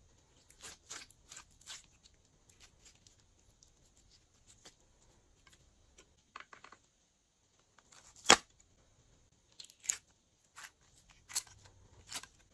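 Glossy slime being handled, giving crisp irregular clicks and pops. The single loudest pop comes about two-thirds of the way through, and a few sharper ones follow near the end.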